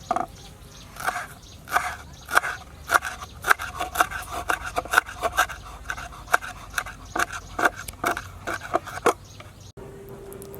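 A cooking utensil working in quick strokes, about two a second, each with a short ring; the strokes stop near the end, and a faint steady tone follows.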